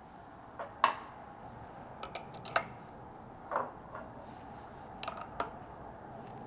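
Metal spanners clinking against a CNC router's spindle and collet nut as a 12 mm end mill is clamped in the collet: a handful of sharp metallic clicks and taps, spread unevenly over several seconds.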